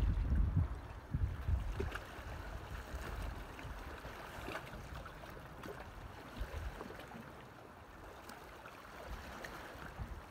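Wind buffeting the microphone for about the first second, then small waves lapping against shoreline rocks as a steady low wash.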